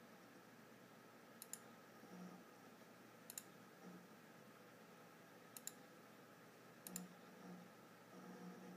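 Computer hard disk drive clicking faintly, with four sharp double clicks a second or two apart and short low grinding buzzes between them, over the steady hum of the running PC. The owner suspects this grinding drive is behind the computer's blue-screen crashes.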